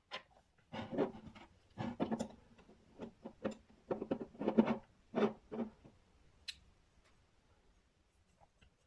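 Objects being handled: rubbing and scratching with light knocks in several short clusters over the first six seconds, then a single sharp click.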